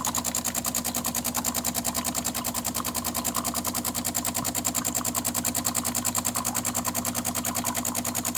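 DeLonghi espresso machine's vibratory pump buzzing steadily with a rapid, even pulsing as it pumps water through the machine under pressure.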